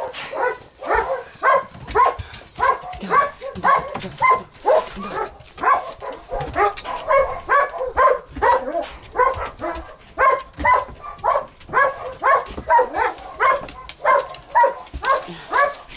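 Dog whining in a steady run of short, high, pitch-bending cries, about two a second, with no pause.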